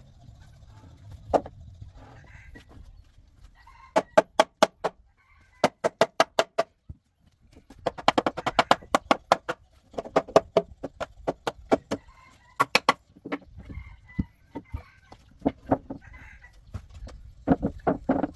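Rapid runs of sharp hammer strikes, several a second, in bursts of about a second with short pauses between.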